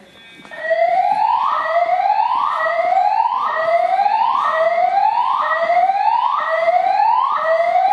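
EST fire alarm voice-evacuation system sounding its whoop evacuation tone. A loud rising sweep repeats about once a second, starting about half a second in, each sweep cutting off and starting again low.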